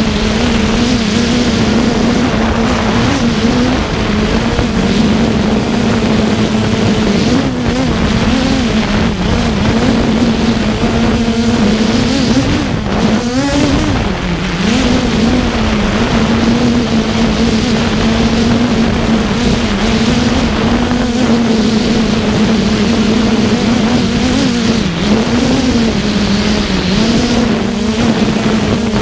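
FreeBird One drone's electric motors and enclosed propellers humming steadily as it holds a hover, the pitch wavering up and down as the motors work against strong wind gusts. Rushing wind noise runs underneath.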